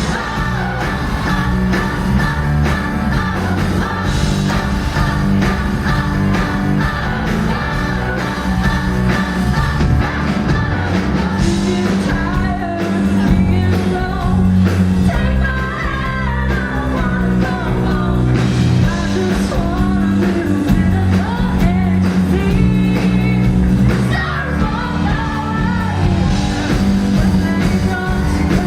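Live rock band playing a pop-rock song, with a lead vocal singing over it.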